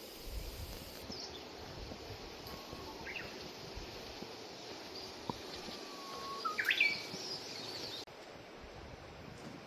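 Birds calling outdoors over a steady background hiss, with a few short chirps and one louder call that sweeps upward in pitch about two-thirds of the way through.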